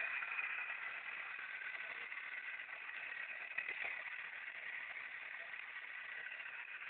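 Small battery-powered electric motor of a homemade toy tractor whirring with a steady high whine as it drives along pulling a loaded trolley.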